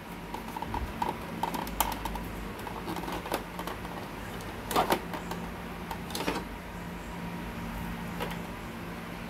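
Plastic parts clicking and knocking as the waste toner container is pushed and re-seated inside a Samsung colour laser printer. There are two louder clacks about five and six seconds in, over a low steady hum.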